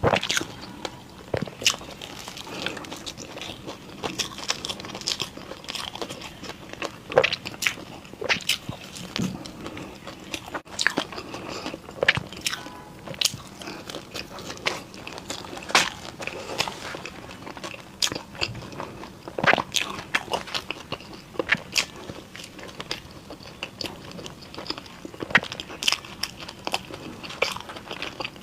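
Close-miked biting and chewing of crunchy Chinese pastries: a run of sharp, irregular crunches, several a second.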